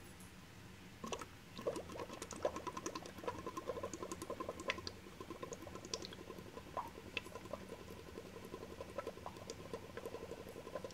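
Air blown through a drinking straw into the water of a Sea Monkey tank, bubbling in a rapid, busy patter of small pops that starts about a second in. The bubbling aerates the water.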